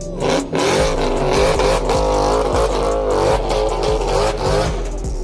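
Car engine revving up and down repeatedly in quick blips, its pitch rising and falling again and again.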